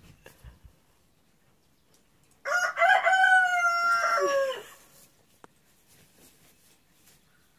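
A single long, loud animal call lasting about two seconds, mostly held on one pitch and falling away at the end.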